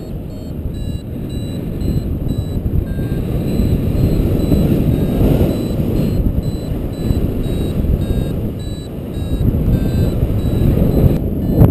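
Wind buffeting the microphone of a paraglider pilot in flight, with a variometer's short electronic beeps sounding over it at changing pitch, the vario's signal that the glider is climbing. The beeps stop shortly before the end.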